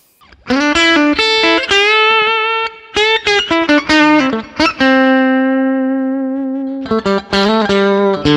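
Harley Benton Fusion II electric guitar played with a clean VOX AC30 amp tone from an Axe-FX III modeller: single-note lead lines with string bends and vibrato, starting about half a second in, with one long held note a little past halfway.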